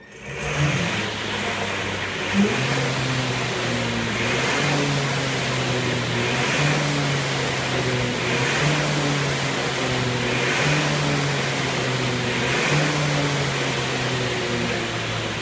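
Rowperfect indoor sculler's flywheel spinning in its standard, non-quieter cage: a loud hum and whoosh that swells with each rowing stroke, about one stroke every two seconds.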